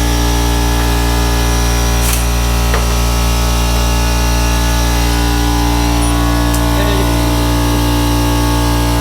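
A motor running at a constant speed, giving a loud, unchanging hum with no rise or fall in pitch. A couple of light clicks come through it a few seconds in.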